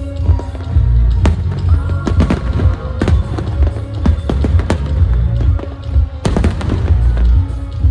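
Aerial fireworks bursting, a rapid series of sharp bangs, over loud music with heavy bass played with the show.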